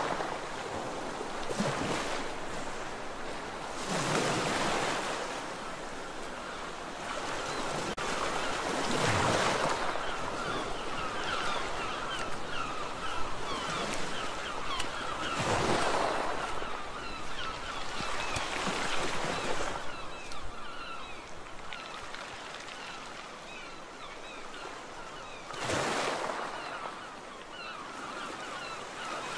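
Sea waves breaking on a beach: a steady wash of surf that swells into a louder surge every few seconds, about six times. From about ten seconds in, a chatter of many short high calls runs under the surf.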